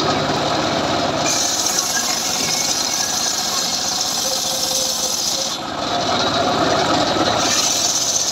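Homemade circular sawmill blade sawing lengthwise through a johar log, a steady loud running noise with a high rasping hiss of the cut. The hiss drops out about five and a half seconds in and comes back about two seconds later.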